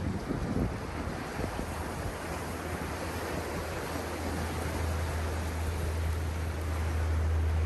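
Ocean waves washing onto a sandy beach, a steady rushing surf, with a steady low rumble underneath that grows louder about halfway through.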